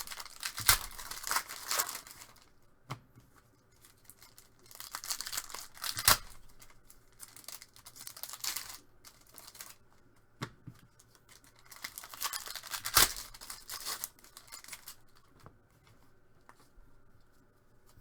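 Trading card pack wrappers being torn open and crinkled, in three spells of tearing and rustling with a few sharp snaps.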